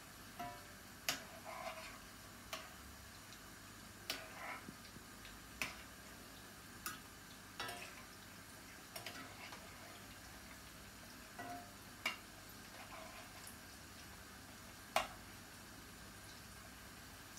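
Small metal spoon clicking against the kadai at irregular moments, about a dozen times, as yam koftas are turned one by one in hot oil, over a faint steady sizzle of frying.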